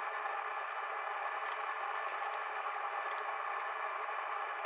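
Steady room noise, an even hiss with faint tones, with a few faint scattered ticks.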